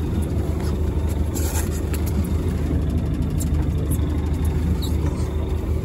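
Fishing boat's engine idling, a steady low rumble.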